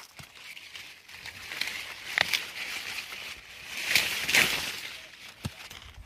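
Corn leaves rustling and brushing as someone moves through the corn plants, in two longer swells, with a couple of sharp clicks.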